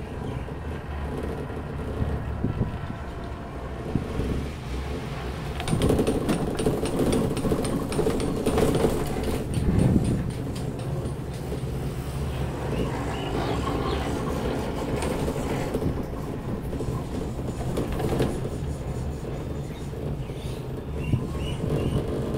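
Cable car gondola riding the haul rope with a steady low hum, then clicking and rattling louder for a few seconds, about six to ten seconds in, as it runs past a support tower's sheave wheels.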